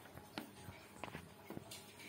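Laptop touchpad being clicked: a few soft separate clicks, two of them close together about a second in.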